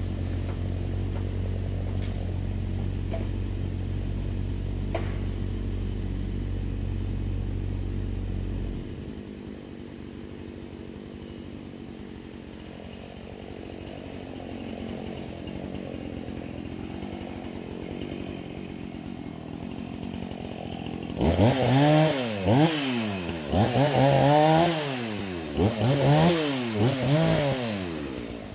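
Mini excavator's engine running steadily, then shut off about nine seconds in. Near the end, a chainsaw starts revving up and down several times, loud.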